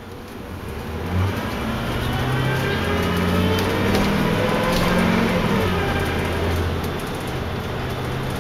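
Tour trolley's engine heard from inside the cabin as it pulls away and accelerates. It grows louder and climbs in pitch for several seconds, drops back, then runs steadily. A single knock sounds about a second in.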